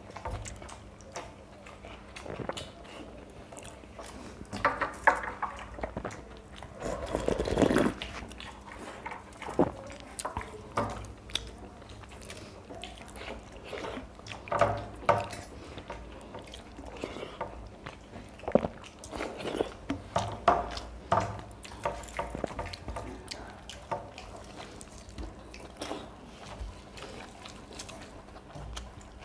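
Two people eating watery soaked rice (panta bhat) by hand from steel plates: chewing and mouth sounds, with wet squelching of fingers in the rice water and scattered short clicks. A louder wet burst comes about seven seconds in.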